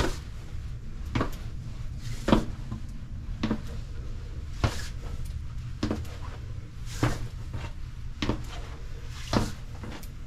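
Footsteps on a spiral staircase in a narrow brick stairwell, a steady pace of about one knocking step every 1.2 seconds, over a constant low rumble.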